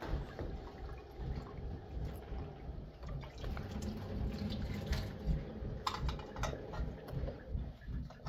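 Water running from a kitchen tap into the sink while a bowl is washed, with a few light clicks and clinks about two-thirds of the way through.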